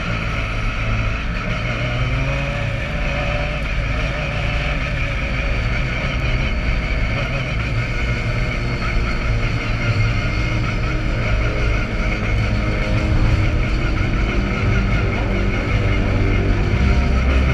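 Onboard sound of a Pro Formula Mazda open-wheel race car at racing speed in a pack: its Mazda rotary engine running hard at high revs, steady and slightly louder toward the end.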